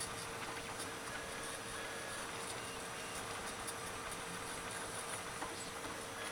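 TJ-MMX+ 3D printer printing a part: its stepper motors sing in short, shifting tones over a steady hum, with faint light ticks.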